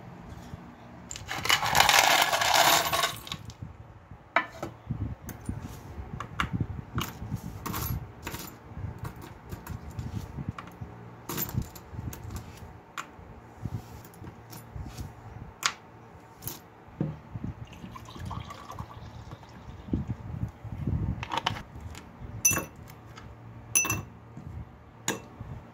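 Small brass clock parts and winding keys clicking and clinking against each other as they are sorted with tweezers, with a few ringing clinks near the end as parts drop into a glass of liquid. A loud burst of handling noise lasts about two seconds near the start.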